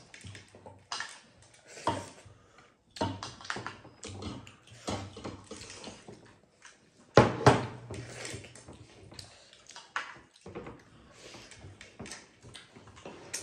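Eating at the table: chewing and mouth noises mixed with irregular clinks and knocks of a metal ladle and spoon against china bowls and plates, with one louder clatter about seven seconds in.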